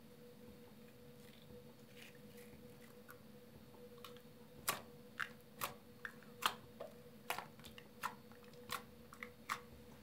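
Blue homemade toothpaste-and-Vaseline slime being pressed and poked by fingers on a tabletop. From about halfway through, about a dozen sharp little clicks and pops come at irregular spacing.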